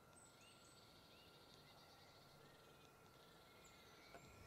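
Near silence with faint woodland birdsong: a small bird repeating a short chirp, with a few fainter, higher calls.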